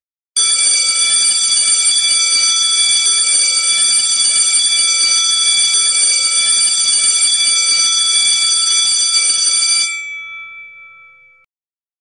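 Super Sync electronic gong bell ringing like an electric school bell, its sound generated by a digital circuit and played through a built-in amplifier and speaker. The loud, steady ring starts about half a second in, holds for about nine seconds, then stops and dies away over a second and a half.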